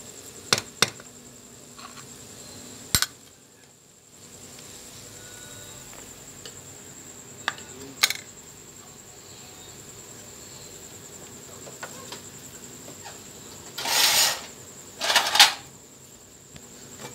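A spoon clinking against a plate and cooking pot in a few sharp, scattered clicks, with two short, louder noisy sounds near the end, over a faint steady high whine.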